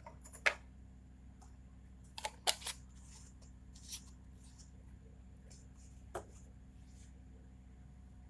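A glass test tube set down into a plastic test-tube rack with a light click, followed by a few more small clicks and taps of handling about two and a half seconds in and again near six seconds, over a low steady hum.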